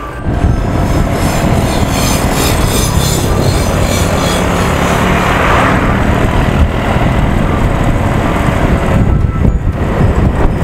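Riding noise on a motor scooter under way: heavy wind rumble on the microphone over engine and road noise, starting abruptly.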